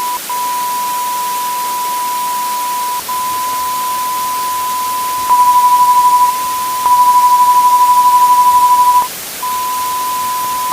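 Emergency Alert System warning alarm on a broadcast, glitching: one steady high tone near 1 kHz over hiss. It cuts out for an instant a few times and twice jumps louder with a fast wavering, about five and seven seconds in.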